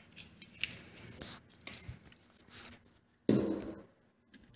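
Hands handling a lamp holder and twisting thin electrical wires together: scattered light clicks and rustling, with one louder rustle a little over three seconds in.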